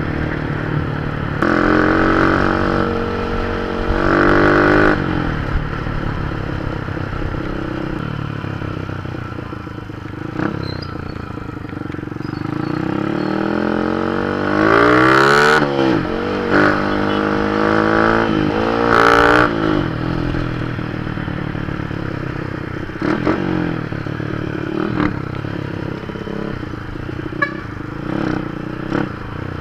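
Honda Dream 100cc motorcycle's single-cylinder four-stroke engine running under way, speeding up and easing off several times, with wind and road rattle on the camera.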